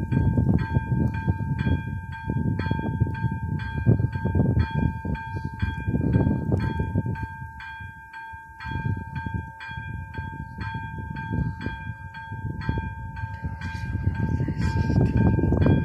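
Electronic bell of an AŽD 71 level-crossing warning signal ringing at about two strikes a second, warning that a train is approaching. Gusty wind rumble on the microphone runs beneath it.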